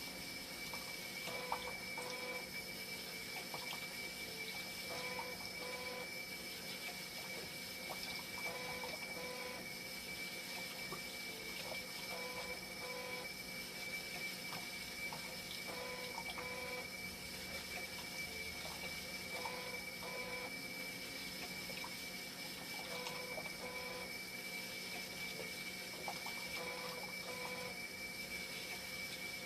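Hemodialysis machine running its self-test: a steady high hum with water flowing through its hydraulics, and a two-step mechanical cycle that repeats about every three and a half seconds.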